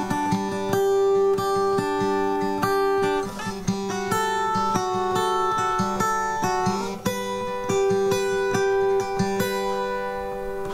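Fender DG60CE acoustic guitar strung with Ernie Ball Earthwood bronze alloy extra light 10-50 strings, played as a demo of the new strings: chords and single notes picked one after another and left ringing. It is heard through the guitar's pickup plugged into a Focusrite iTrack Pocket audio interface.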